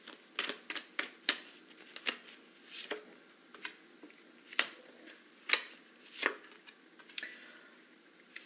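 Tarot cards being handled: about a dozen short, irregular snaps and taps as the deck is shuffled and cards are drawn and laid down.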